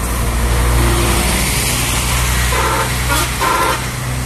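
Large tour coach's diesel engine passing close by, a steady low drone that is loudest about a second in. Near the end come a few short toots.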